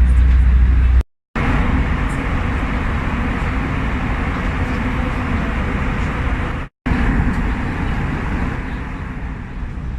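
Steady engine and air rush inside the cabin of an Airbus A320, with a deep hum during the first second. The sound cuts out abruptly twice, about a second in and again near seven seconds, where clips are joined.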